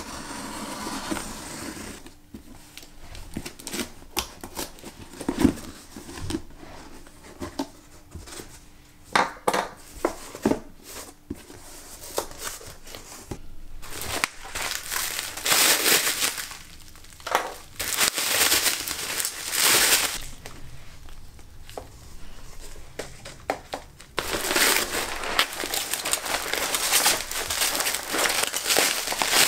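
Packaging crinkling and rustling as a box of snacks is unpacked by hand, with sharp clicks and taps between louder runs of crinkling; the longest run comes near the end.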